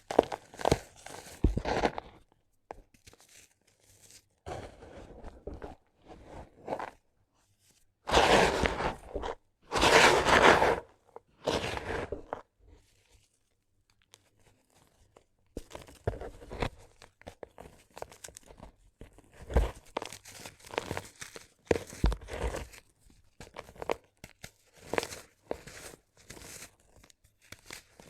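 Dry sand-cement pieces crunching and crumbling, a gritty crackle in irregular bouts, the loudest two a third of the way in.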